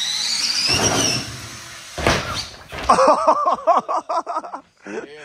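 Small electric kids' dirt bike's motor whining, rising in pitch as it accelerates. A thud about two seconds in as bike and rider land on an airbag landing pad, then voices calling out.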